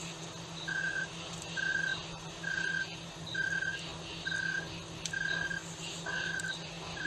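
Night jungle ambience: a short, steady, whistle-like note from a night animal repeats evenly a little more than once a second over a constant background of insects, with faint higher chirps between.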